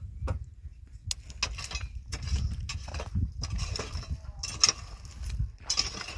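Metal shovel blade scraping and scooping through loose, stony earth in repeated irregular strokes, roughly one every second.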